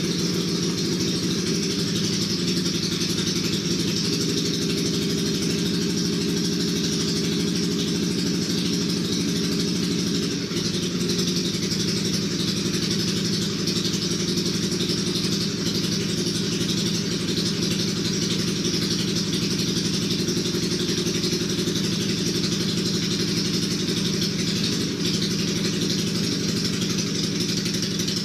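Motorcycle engine idling steadily, with a slight change in its low tone about ten seconds in.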